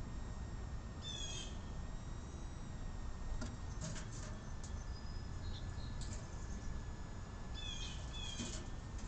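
Small birds chirping in two quick series of short, high, stepped-down notes, about a second in and again near the end, with a few sharp clicks in between over a steady low outdoor rumble.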